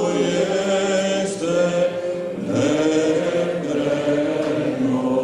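Eastern Orthodox liturgical chant sung by a choir, several voices holding long notes together and moving to new pitches every second or two.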